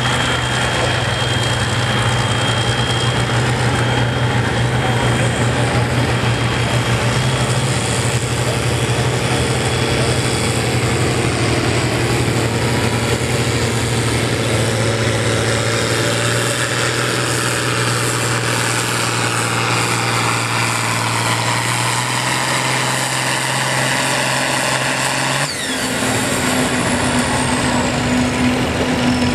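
Repowered John Deere 4020 tractor's engine running hard under full load while pulling a weight-transfer sled, a steady drone for most of the run. About 25 seconds in, the sound breaks off sharply and settles into a different steady tone.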